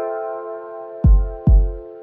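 Background electronic music: a held synth chord with two deep kick-drum beats about a second in.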